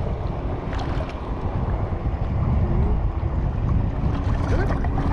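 Wind buffeting the microphone outdoors, a steady low rumble, with a faint steady hum underneath.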